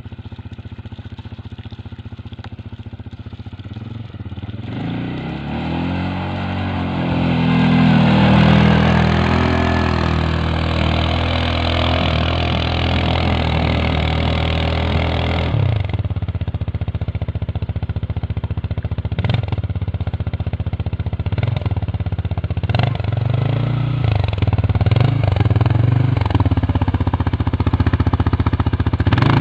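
CFMoto CForce 550 ATV's single-cylinder engine pulling uphill on snow, getting louder as it comes close about five to eight seconds in. In the second half it revs up and down in repeated surges as it works through the snow.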